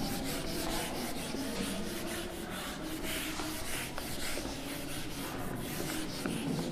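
Handheld whiteboard duster rubbing across a whiteboard in repeated back-and-forth wiping strokes as a drawing is erased.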